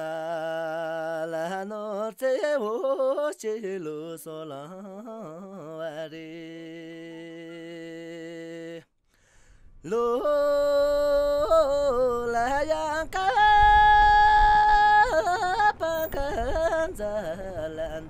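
Soundtrack music: a solo voice singing long, wavering, sliding notes over a steady drone. It breaks off briefly about nine seconds in, then returns higher and louder over a low rumble.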